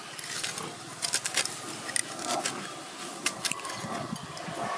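Cleaver blade scraping the pulp and seeds out of a halved Feroniella lucida (krasang) fruit, a run of scattered scratchy clicks.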